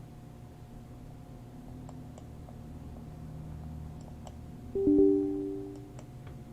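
Windows system alert chime: two notes, falling, sounding suddenly about five seconds in and ringing out over about a second, the error sound of the app launch failing. A few faint mouse clicks come before it.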